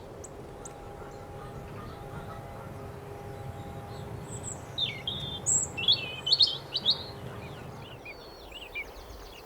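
Wild songbirds singing outdoors, with a cluster of quick high chirps and short trills about five to seven seconds in, over a faint low rumble.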